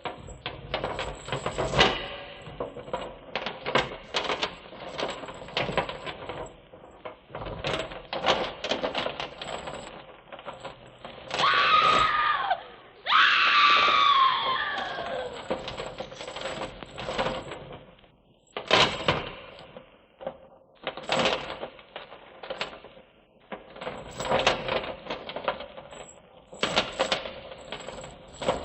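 Haunted-house sound effects from a vinyl record: irregular metallic clinking and rattling, broken about twelve and thirteen seconds in by two loud screams that fall in pitch, after which the clinking picks up again.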